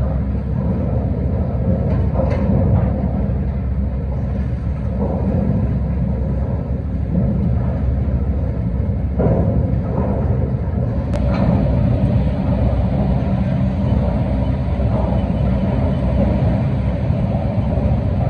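Heavy log-yard machinery running with a steady low rumble. There are a few faint knocks, and a sharp click about eleven seconds in.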